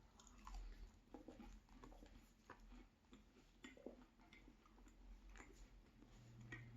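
Faint chewing of a mouthful of pork and beef meat pie, heard as soft, irregular clicks and smacks.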